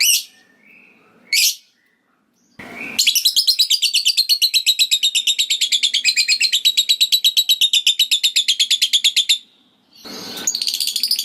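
Lovebird giving two short sharp chirps, then a long rapid chattering trill ('ngekek') of evenly repeated high notes lasting about six seconds, with another trill starting near the end. A short noisy burst comes just before each trill.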